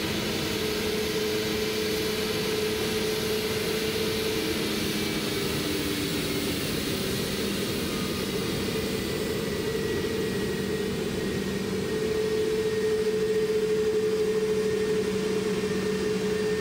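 Airbus A320neo-family airliner's CFM LEAP-1A turbofan engines running at taxi idle as it rolls past: a steady whine and hiss with a couple of held tones, getting a little louder about two-thirds of the way through as the engine draws level.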